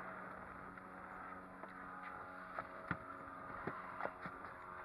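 Boat engine idling with a steady hum, with several sharp knocks and clicks about two and a half to four seconds in.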